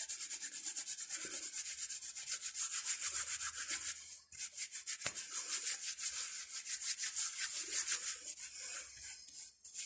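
Fingers being scrubbed clean by hand: a fast back-and-forth rubbing, many quick strokes a second, breaking off briefly about four seconds in and again near the end.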